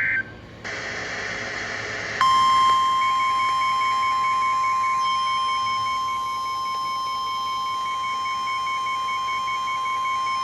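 Weather radios sounding a severe thunderstorm warning. After a short burst of static-like hiss, the steady 1050 Hz NOAA Weather Radio warning alert tone comes on about two seconds in and holds. A higher alarm tone beeps rapidly on and off over it.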